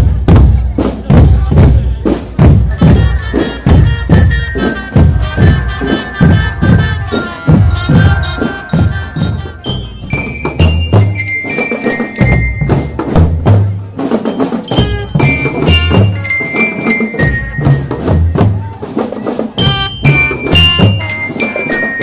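School drum band playing: a steady beat on the drums, with a melody on bell lyra (marching glockenspiel) coming in a few seconds in and moving higher about halfway through.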